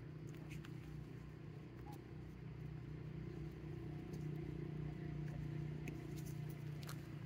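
A motor vehicle's engine running steadily, a low hum that grows a little louder about four seconds in, with a few faint clicks over it.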